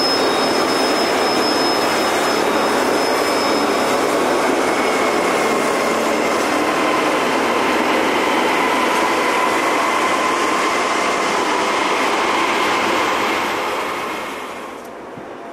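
Freight train with a lashup of diesel locomotives rolling past close by: a steady loud rush of wheels on rail with a faint high squeal running through it. The sound drops away sharply near the end.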